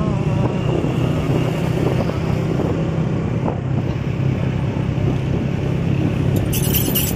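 Motorcycle engine running steadily under way, with road and traffic noise, and a short patch of sharp clicks near the end.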